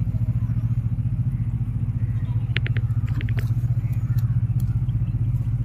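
A steady low engine drone with a fast, even pulse, with a few short high chirps near the middle.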